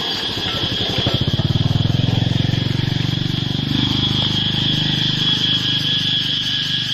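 A motorbike engine running close by, swelling about a second in and then easing off, over a steady high chirring of insects.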